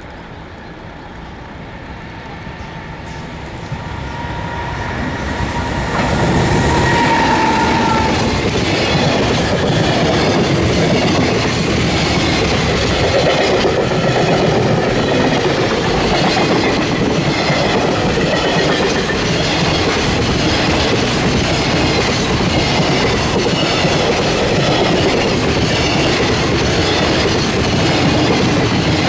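JR Freight EF210 electric locomotive hauling a long freight train past, the sound building over the first six seconds, with a steady high tone as it draws near. After that the wagons keep rumbling and clattering over the rail joints at a steady level.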